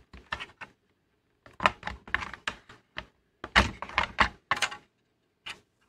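Hard plastic clicking and knocking as a film scanner's plastic scan carriage is pried and wiggled free of its retaining clip. The clicks come in irregular clusters, loudest a little past the middle.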